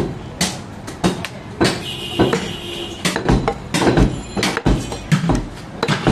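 Butcher's cleaver chopping beef on a wooden tree-trunk block: sharp, irregular knocks, about two a second.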